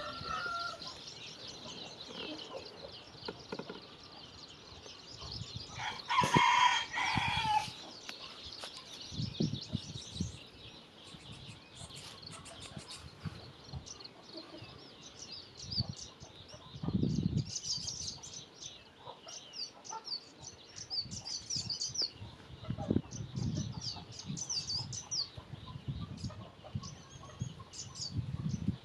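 A rooster crows once, loudly, about six seconds in, a call of about a second and a half. Small birds chirp high and fast through much of the rest, with a few low thuds.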